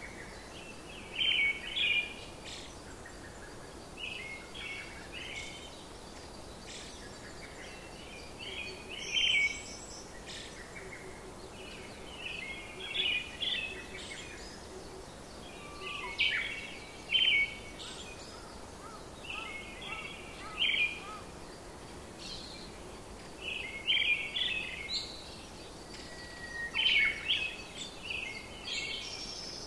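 Birds chirping in short, repeated high phrases every second or two, over a steady faint hiss.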